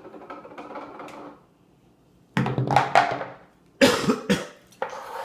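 A young child coughing in two harsh bouts, the first about two seconds in and the second a second or so later, with some voice mixed into the second.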